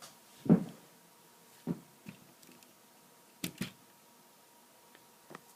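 Plastic toy robot figures being handled: a knock about half a second in, then several lighter, sharp clicks of hard plastic parts spread through the rest.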